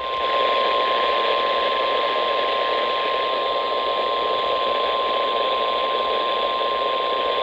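NOAA Weather Radio 1050 Hz warning alarm tone: one steady, unbroken beep held throughout, heard over radio static. The tone signals that a weather alert is about to be read.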